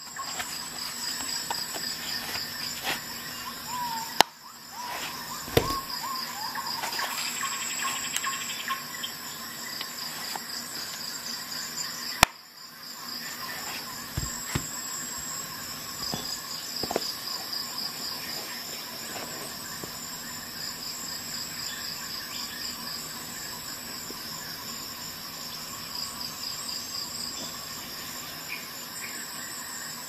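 Steady, pulsing high chirping like crickets, with scattered clicks and knocks from a folding camping multi-tool and its fabric sheath being handled; the sharpest click comes about twelve seconds in.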